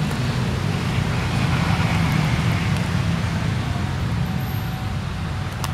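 Road traffic noise: motorcycle and car engines with tyre noise, steady, swelling about two seconds in and easing toward the end.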